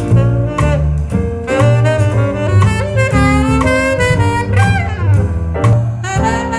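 Jazz recording played back through a hi-fi loudspeaker and picked up by a microphone in the room: a melody line over a bass that steps from note to note about twice a second, with drums.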